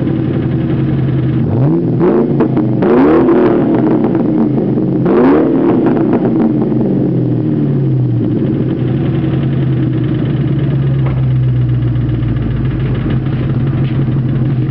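2001 Ford Mustang GT's 4.6-litre V8 running, blipped a few times in the first six seconds, with the revs rising quickly and falling back before it settles to a steady idle. It has a rod knock, the sign of a worn connecting-rod bearing.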